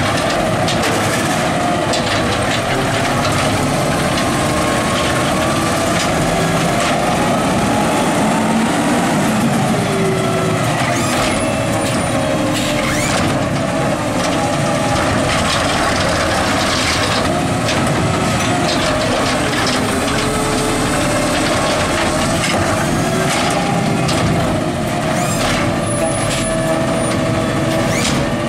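Natural-gas engine of an Autocar ACX garbage truck running and revving while the McNeilus Zero Radius side-loader's hydraulic arm works, its whine rising and falling as it lifts, dumps and lowers carts. Several sharp clanks and bangs of plastic carts and the arm's grabber come through, mostly in the middle and near the end.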